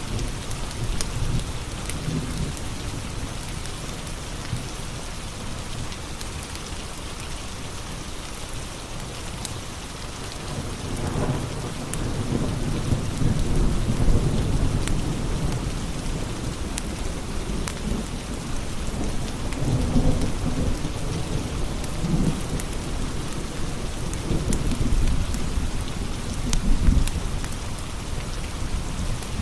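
Steady rain with thunder rumbling low in swells several times, over scattered sharp crackles of a wood fire.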